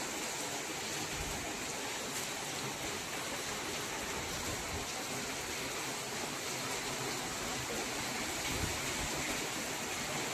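Heavy rain falling steadily, a dense even hiss of rain.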